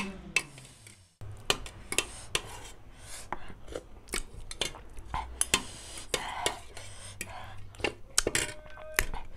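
Fork and spoon clinking and scraping against a stainless steel plate in many sharp, irregular clicks, with chewing and other close-up mouth sounds of eating between them.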